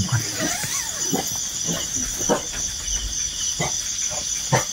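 Dog barking repeatedly, in short barks spaced irregularly about half a second to a second apart: alarm barking at an elephant approaching in the dark. A steady chorus of insects runs behind.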